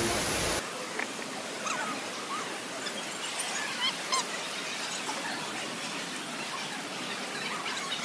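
The rush of a tall indoor waterfall cuts off sharply about half a second in. It leaves a soft steady hiss with scattered short, high chirps.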